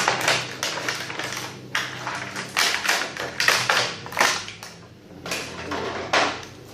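Irregular plastic clicks, taps and rustles from a Tobot transforming robot toy and its packaging being handled, a dozen or so sharp clicks with short rustling bursts between them.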